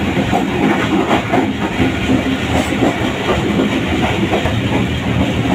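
Passenger train running along the track, heard from inside a carriage: a steady rumble with the wheels clattering over the rails.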